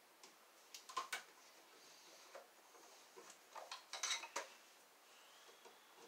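Small metallic clicks and taps of a screwdriver working on a wall outlet's terminal screws and wires: a couple about a second in, then a short cluster a little past the middle.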